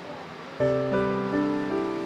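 Background music: a sustained chord with a deep bass note starts about half a second in, and more held notes come in one after another.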